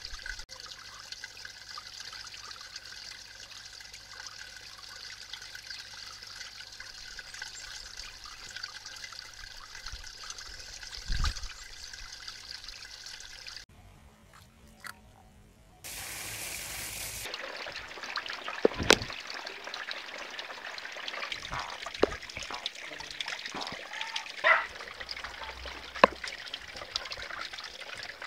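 Water trickling steadily along a shallow concrete channel into a garden pond. About halfway through, the sound cuts out for a couple of seconds, then the trickling resumes with a few sharp clicks.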